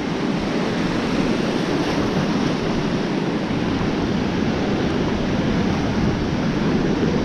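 Ocean surf breaking and washing in a steady rush.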